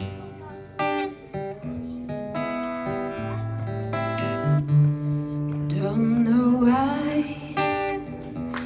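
Acoustic guitar playing a slow instrumental introduction of held chords and single notes.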